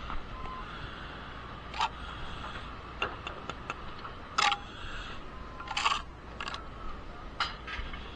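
Irregular sharp clicks and knocks, about six of them at uneven intervals, the loudest near the middle.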